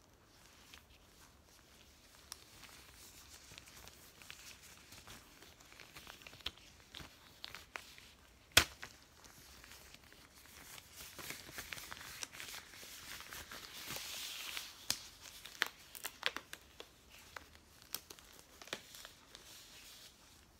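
Latex examination gloves being stretched, pulled and flexed on the hands: rubbing and crinkling rubber with scattered small clicks, and one loud sharp snap of latex about eight seconds in.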